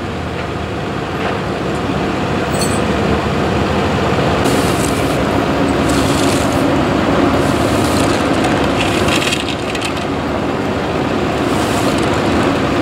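Steady road traffic noise, with several vehicles passing one after another.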